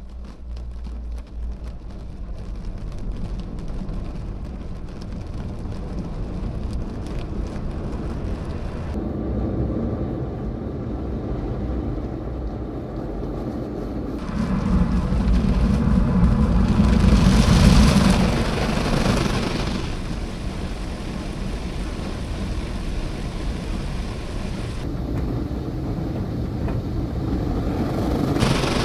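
Automatic rollover car wash heard from inside the car: the gantry machinery running and water spraying onto the bodywork. The spray swells loudly about halfway through, eases, then builds again near the end.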